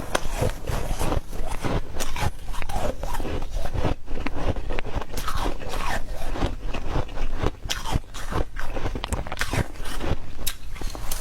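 Close-miked biting and chewing of soft white ice: dense, irregular crunching and crackling throughout.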